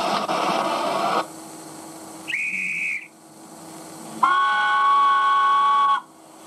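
Steam hiss that cuts off about a second in. Then a short, high, single-note guard's whistle, and then a miniature steam locomotive's chime whistle sounding several notes together for nearly two seconds. Together they are the guard's right-away signal and the engine's answering whistle before departure.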